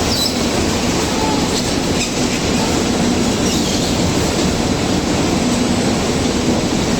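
Steady, loud mechanical rumble and rattle, with a few faint, brief high squeals.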